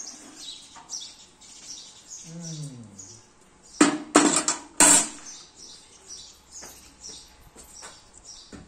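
Small birds chirping over and over, high and short, with a low falling voice-like call a little after two seconds in. About four seconds in comes a brief burst of loud clatter, several sharp knocks close together, as steel dishes are handled.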